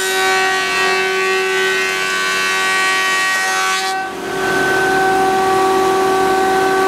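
Thickness planer running with a steady whine, its cutterhead taking wood off the top of a board with a loud rushing hiss until about four seconds in, then running on without a board in it.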